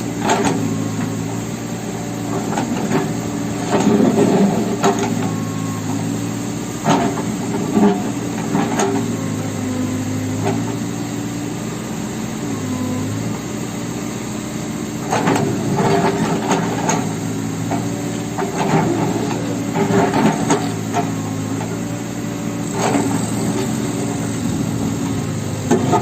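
New Holland backhoe loader's diesel engine running steadily, its pitch dipping and rising as the hydraulics are worked. Repeated sharp knocks and cracks cut across it, some in clusters, as the backhoe bucket strikes and breaks a concrete wall.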